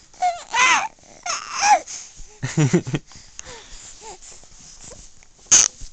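Infant vocalizing: a few short cooing squeals that slide up and down in pitch, then fainter little sounds, and one short sharp breathy burst near the end.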